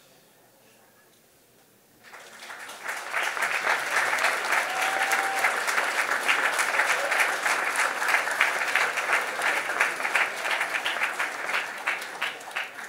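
Audience applauding: it starts about two seconds in, swells within a second to a full steady applause, and thins to a few separate claps near the end.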